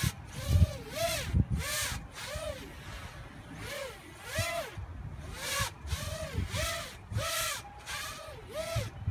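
A small 175-size FPV racing quadcopter's electric motors and propellers whining in repeated throttle bursts as it tumbles slowly. The pitch swells up and falls away about one and a half times a second.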